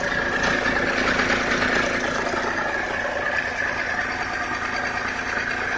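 Mercedes-Benz Vito 2.2 CDI's OM646 four-cylinder common-rail diesel engine idling steadily and evenly.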